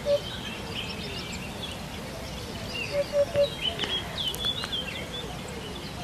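Eurasian hoopoe calling its soft, hollow "oop-oop-oop": one last note at the start, then a run of three about three seconds in. Other small birds twitter in the background.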